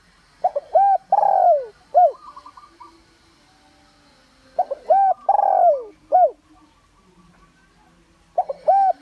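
Spotted dove cooing. Each phrase is a few quick short coos, a long falling coo and one last short coo, repeated about every four seconds: two full phrases, with a third starting near the end. It is a decoy bird's call, the kind used to draw wild males in to fight.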